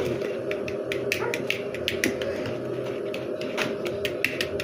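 Cupcake batter being whisked by hand in a bowl, the whisk clicking against the bowl at an uneven pace over a steady low hum.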